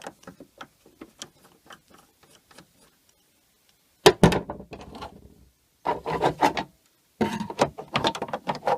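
A nut being taken off a threaded rod and a plastic trim cover being fitted onto the jack and tool holder: a run of small light clicks, a short pause, then louder knocks and plastic rubbing and scraping in clusters.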